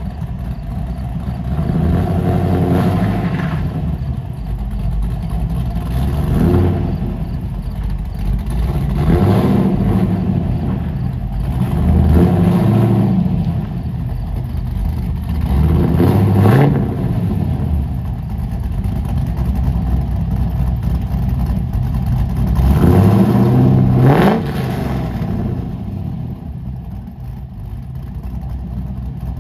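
Forged LS1 V8 in a 1986 Camaro IROC-Z, breathing through long-tube headers and a full 4-inch exhaust, idling and revved several times in quick blips that rise and fall, then settling back to idle near the end as the car rolls out in reverse.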